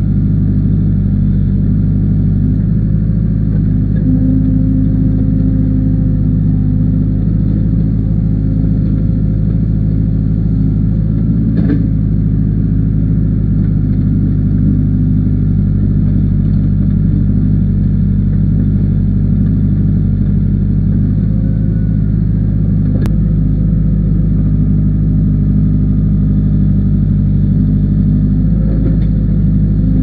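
Case backhoe loader's diesel engine running steadily at working speed, heard close up from the operator's seat while the backhoe digs. Two brief sharp knocks, about twelve seconds in and again about twenty-three seconds in.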